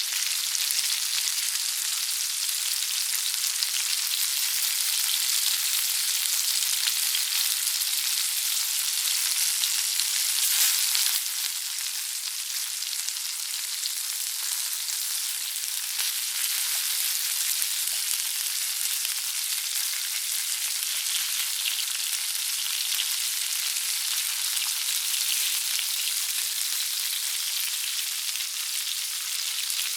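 Sausages frying in a pan: a steady sizzle with fine crackles and pops, swelling briefly about ten seconds in.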